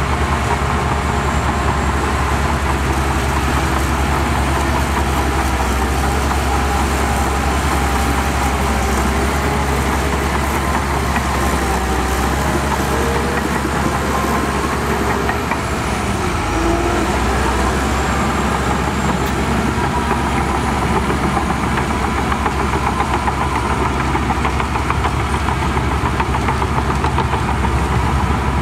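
Heavy diesel earthmoving machinery running steadily with a constant low throb, and a faint high whine that dips and comes back about halfway through.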